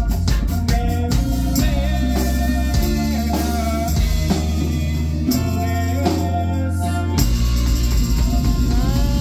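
Live band playing loud amplified music: drum kit, electric guitar, keyboard and horns (trumpet and saxophone), with singing.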